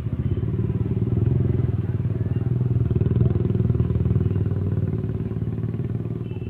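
A small engine runs close by with a fast pulsing note, growing louder to about three seconds in and then slowly fading, as if passing by.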